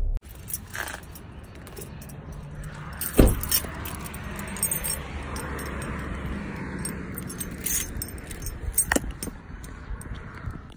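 Keys jangling with scattered light clicks, and a single heavy thump about three seconds in, over a steady low rumble.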